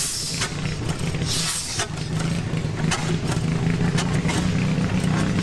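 Large antique vertical single-cylinder stationary gas engine, turned over by hand on its flywheel, running with sharp pops at uneven intervals over a steady low hum.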